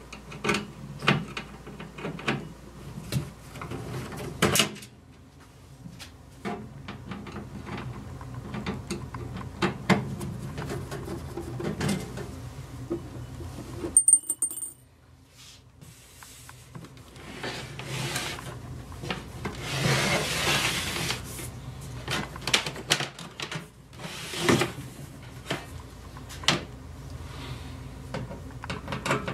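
Screwdriver backing out the side screws of a Sony CDP-CX350 CD player's case: irregular small clicks, taps and scrapes of the tool in the screw heads, with rubbing and handling noise close to the microphone.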